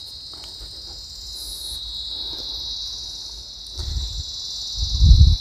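A steady, high insect chorus shrills without a break. Near the end, louder low rumbling thuds break in.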